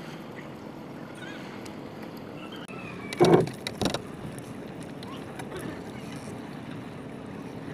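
Water lapping against a small wooden outrigger canoe, with two loud sudden sounds about three and four seconds in, the first the louder.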